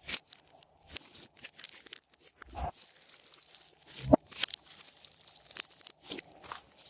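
Glossy slime being squished and stretched by hand, giving irregular sticky clicks and crackles, with two louder pops about two and a half and four seconds in.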